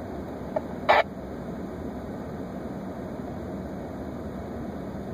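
Steady running noise inside a parked emergency vehicle, with one short, sharp chirp about a second in and a fainter one just before it.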